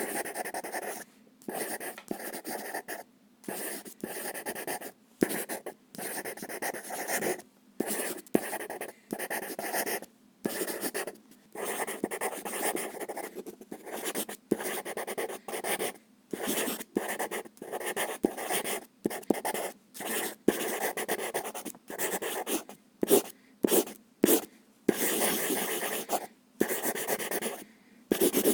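Pencil drawing on paper: the graphite scratches and rubs in stroke after stroke, some short and some up to a couple of seconds long, with brief pauses between them.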